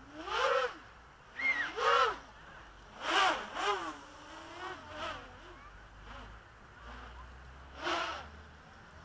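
Quadcopter motors and bullnose propellers whining in a series of short throttle bursts, each one's pitch rising and then falling, several close together and one more near the end.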